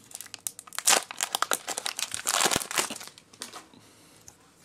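Foil wrapper of a Pokémon card booster pack being torn open and crinkled: a run of sharp crackles, densest about two and a half seconds in, then dying down to faint rustling.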